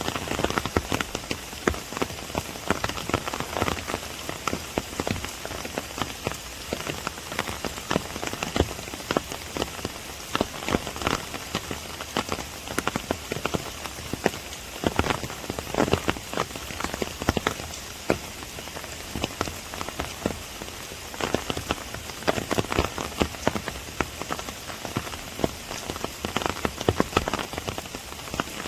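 Steady rain falling in a bamboo grove: a continuous hiss with many close, irregular drop hits over it.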